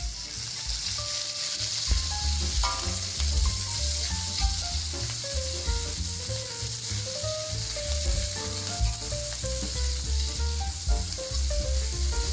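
Sliced red and green chillies with garlic and shallots sizzling steadily in hot oil in a pan.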